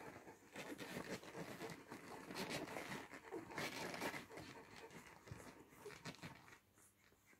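Week-old Bernese Mountain Dog puppies suckling at their mother: irregular soft smacking and rustling against fur.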